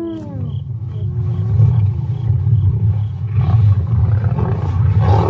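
Lions growling over a kill: a continuous low, rumbling growl. A higher call falls away in the first half-second, and shorter calls come about one and two seconds in.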